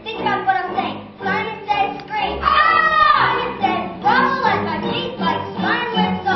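Children's chorus singing a song together, with a loud high held note about three seconds in.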